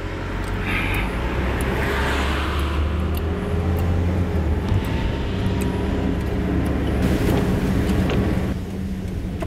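Car running along, a steady engine hum with road noise. It gets quieter about eight and a half seconds in.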